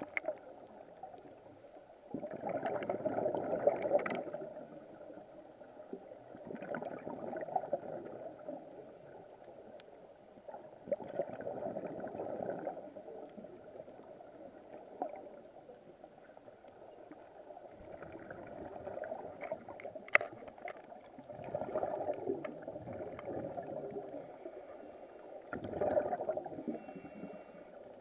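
Scuba regulator exhalations heard underwater: bubbles gurgling out in rushes every few seconds, about six in all, over a low muffled hiss.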